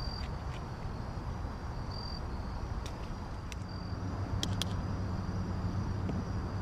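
Outdoor ambience: a steady high insect trill, like crickets, that drops out and returns, over a low steady rumble. A few sharp clicks come about three to four and a half seconds in.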